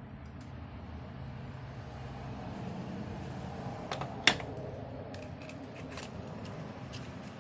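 A sharp click about four seconds in, then a few lighter ticks, over a steady low hum.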